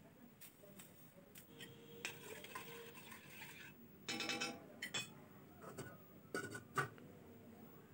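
Metal ladle stirring broth in a stainless steel pot, scraping and clinking against the pot. About four seconds in it knocks against the pot with a cluster of sharp ringing clinks, and a few more clinks follow a couple of seconds later.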